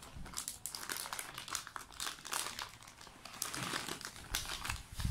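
A plastic bag of small marshmallows crinkling as hands handle it, in short irregular crackles.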